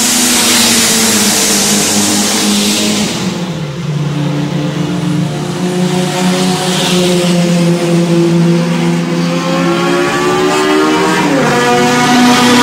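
Racing cars, saloons and open-cockpit lightweights, running hard past the grandstand one after another. Their engine note drops in pitch about three seconds in as the leading cars go by. Later another engine note climbs steadily, falls sharply for a gear change near eleven seconds, and climbs again as the next group comes up.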